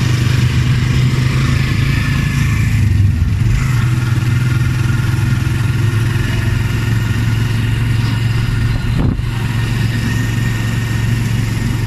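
Motorcycle engine of a tricycle running steadily, heard from inside its sidecar, with a short knock about nine seconds in.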